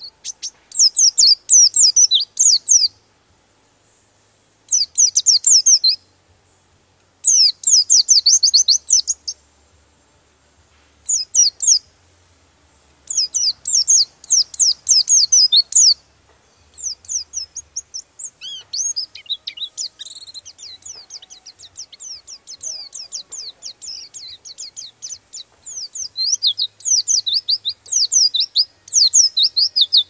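White-eye (pleci) singing a fast, high twittering song. It starts as phrases of one to two seconds with short pauses, then about halfway through runs on almost without a break, the rolling song that bird keepers call "ngeroll".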